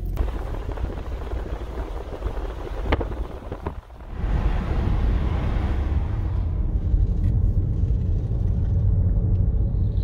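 Steady low rumble of road and wind noise from a car driving along. There is a sharp click about three seconds in and a brief drop in level just before four seconds.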